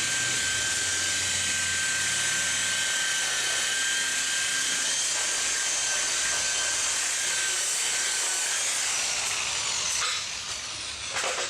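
A small motor running steadily with a hiss and a high, thin whine, cutting off about ten seconds in, followed by a few sharp clicks.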